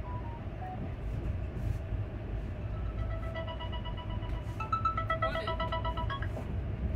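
Steady running rumble of a Duronto Express coach on the move, heard from inside the train. From about three seconds in to about six seconds, a short pulsing tune of a few notes sounds over it.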